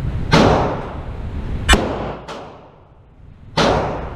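Ruger LCR revolver firing .38 Special +P rounds: four sharp gunshots at uneven intervals of roughly half a second to a second and a half, each trailing off in the echo of the enclosed indoor range.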